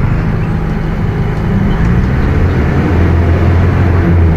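Mercedes-Benz OF 1721 BlueTec 5 bus on the move, its engine and drivetrain giving a steady low drone that grows stronger about halfway through.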